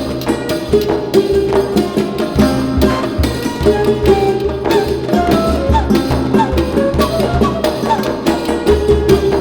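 Music with a steady drum beat under a melody of held notes, coming from a radio tuned in clearly to a station with no static.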